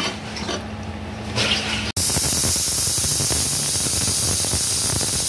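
Steam hissing steadily out of a closed pressure cooker's weight valve as it vents under pressure, the rice inside cooking, starting abruptly about two seconds in. Before it, a steel ladle stirs the rice in the open cooker.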